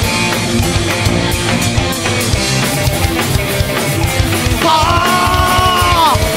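Live rock band playing an instrumental passage with a drum kit driving throughout. Near the end a long held high note comes in and slides down as it ends.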